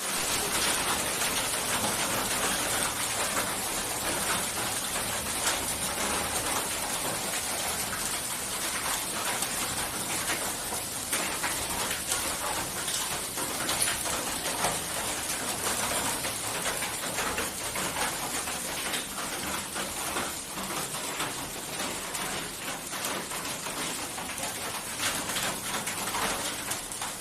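Hailstorm: a steady hiss of falling precipitation dotted with many small sharp impacts.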